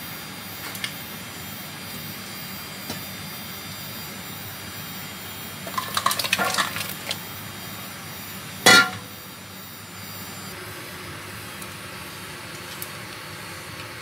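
Stainless steel mixing bowl clinking as it is picked up and handled, then one loud, heavy splash as a salted pork leg, carrots and corn are tipped from it into a clay pot of boiling water, over a steady background hiss.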